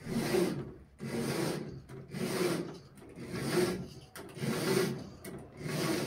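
Zebra roller blind being raised by its bead chain, pulled hand over hand: six rasping strokes about a second apart.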